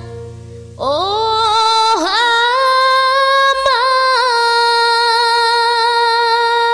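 Closing music: about a second in, a single high melodic note scoops up in pitch and is held, wavering briefly twice, until near the end.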